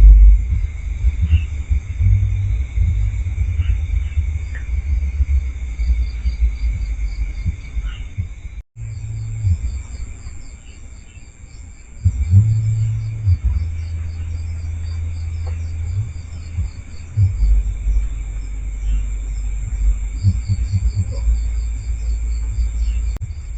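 Night insects, crickets among them, trilling and chirping steadily, over a heavy low rumble that comes and goes. The audio cuts out for a moment about nine seconds in.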